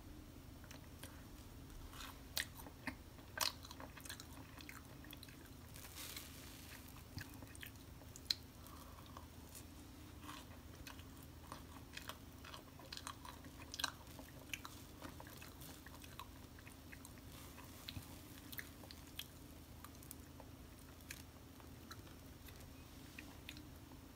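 Cloud bread, a baked whipped egg-white bread, being torn and squeezed apart by hand: faint, scattered crackles and soft crunches, with a few louder snaps here and there.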